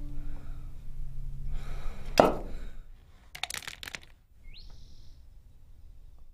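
A sharp knock about two seconds in, then a short clatter of clicks, then a single bird-like call that rises and holds for under a second.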